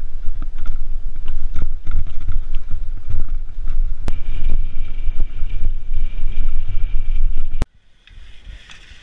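Wind buffeting a rider-mounted action camera's microphone, with a dense rumble and frequent knocks and rattles as a cyclocross bike rides over a rough grass-and-dirt course. About three-quarters of the way through the rumble cuts off suddenly, leaving a much quieter stretch.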